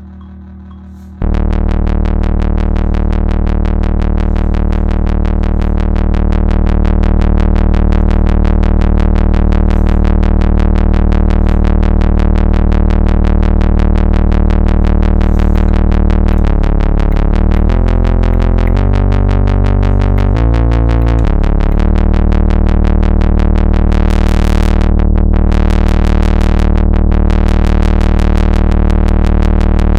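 Behringer Crave monophonic analog synthesizer, one pulse-width-modulated oscillator, playing a loud, buzzy bass note that comes in sharply about a second in. Around the middle the pitch steps through a short run of notes and then settles back, and near the end the tone flickers brighter and duller as the filter opens and closes.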